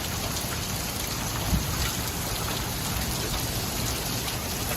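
Heavy rain with hail coming down, a steady hiss with scattered sharp ticks of hailstones striking, one a little louder about one and a half seconds in.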